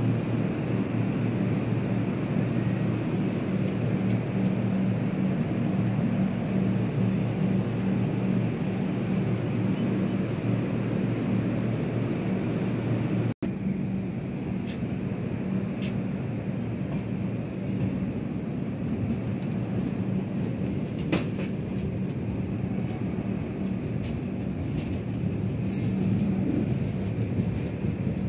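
Passenger express train with LHB coaches: a steady rumble with a low hum close beside the coaches, then, after a cut about halfway through, steady running noise heard from the open coach doorway as the train moves, with two sharp clicks in the later part.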